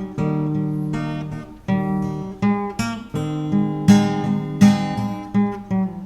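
Instrumental music in a break between sung verses: a guitar picking out a run of single notes and chords, each starting sharply and ringing on.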